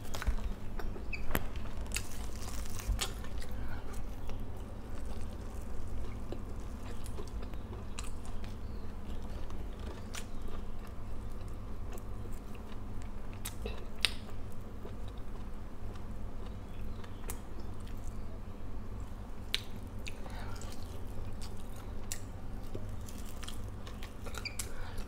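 A person chewing and smacking while eating fried fish and rice with her fingers, with scattered sharp clicks and crunches throughout.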